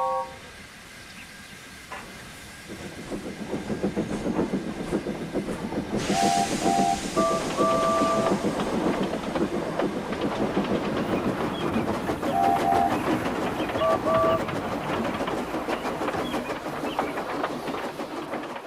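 Steam locomotive chuffing, starting softly about three seconds in and settling into a steady rhythm, with a rush of steam hiss about six seconds in. Its chime whistle sounds a few short toots ending in a longer blast, and repeats the call about twelve seconds in.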